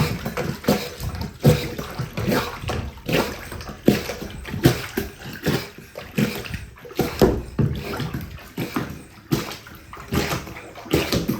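Manual plunger-type laundry agitator being pumped up and down in a bathtub of soapy water and clothes, with a rhythmic slosh and suck of water about twice a second as it forces the water through the fabric.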